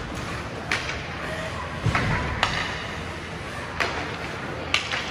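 Ice hockey play: several sharp clacks of sticks hitting the puck, over a steady hiss of skates on the ice.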